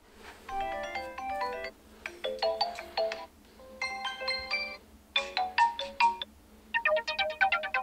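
A built-in ZTE Blade A73 ringtone playing: a melody of quick stepped notes in five short phrases, each about a second long with brief pauses between them.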